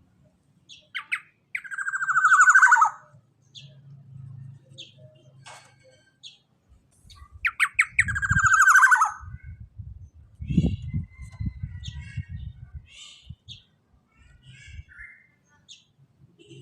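Black-naped oriole giving two loud, harsh calls that slide down in pitch, about six seconds apart, with short faint chirps in between. A low rumble runs under the second half.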